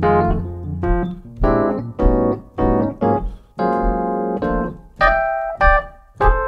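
Digital stage piano playing a medium-tempo jazz blues in F, short comping chords and a melody line. A low thump marks each beat, about two a second.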